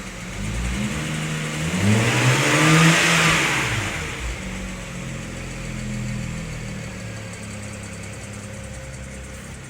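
BMW N54 twin-turbo inline-six idling, blipped once: the engine note rises for about a second and a half and falls back to idle by about four seconds in. A faint, fast, light ticking runs in the idle near the end.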